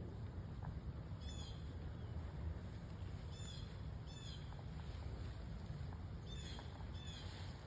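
A songbird calling in short, repeated chirps, five or six times, over a steady low rumble.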